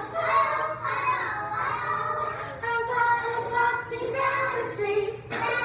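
A group of young children singing a song together, with held, pitched notes.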